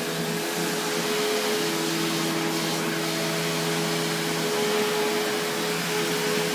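Kenmore Whispertone upright vacuum cleaner with a 12-amp motor, running steadily while vacuuming carpet. It makes a constant motor hum with a few steady tones over an even rush of air.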